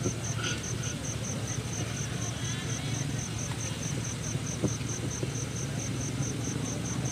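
An insect, such as a cricket, chirping in an even high-pitched pulse about five times a second, over a steady low hum.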